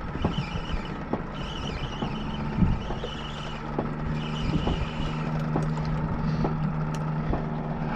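Boat motor running steadily with a low hum, with small knocks about once a second over it.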